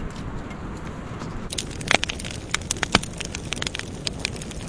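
Wood fire crackling with many sharp pops, the loudest about two and three seconds in, over a steady rushing background.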